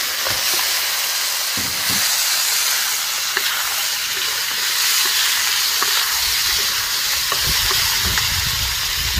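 Chicken, shallots and green onions sizzling in a hot hammered wok while a wooden spatula stirs them: a steady frying hiss with a few light clicks of the spatula against the pan.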